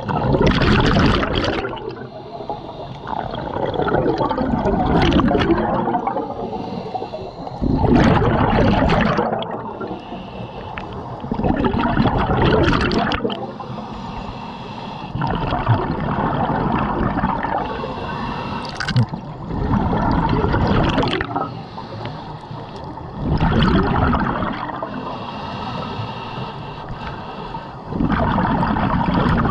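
Scuba diver's exhaled air bubbling out of the regulator underwater: a loud gurgling rush of bubbles about every three to four seconds, in time with the diver's breathing, with quieter water noise between.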